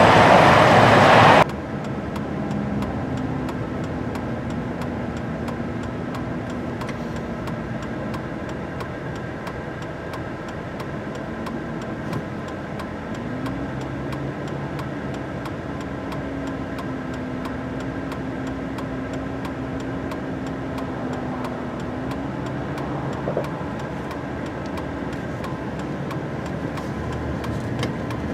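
John Deere S690 combine's diesel engine running steadily, its pitch stepping up a little about halfway through and dropping back near the end. A louder rush of noise in the first second and a half cuts off abruptly.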